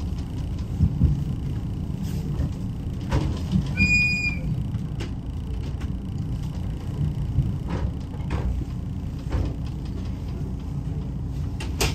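Inside a moving railway passenger carriage: a steady low running rumble with irregular clicks and knocks from the wheels on the track and the rattling car body. About four seconds in there is a short, high-pitched squeal.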